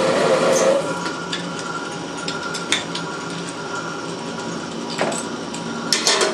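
Litton Autolathe glass lathe: its running noise drops off under a second in, leaving a steady hum. Sharp metal clicks follow, a few seconds apart, as the jaw chuck is worked with a chuck key.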